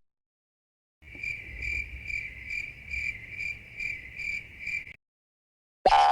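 Cricket-chirping meme sound effect: a steady high chirring that pulses about twice a second for roughly four seconds, then stops. A sudden loud sound cuts in right at the end.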